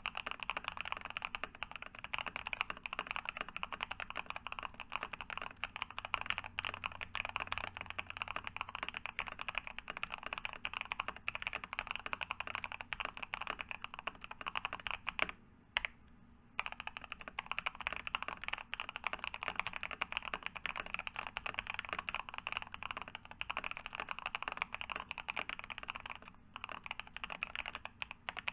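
Steady fast typing on a NovelKeys NK87 Entry Edition, a plastic-case tenkeyless mechanical keyboard with long-pole Epsilon switches, lubed and filmed, and a silicone plate dampener, giving a deep, creamy thock. The typing stops for about a second around the middle, then carries on.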